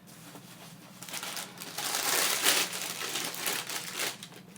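Newspaper packing crinkling and rustling as it is crumpled and pulled away, starting about a second in and loudest in the middle.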